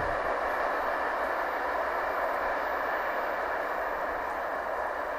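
Freight train of tank wagons rolling along the track: a steady rolling noise from the wagons' wheels on the rails, easing off slightly near the end.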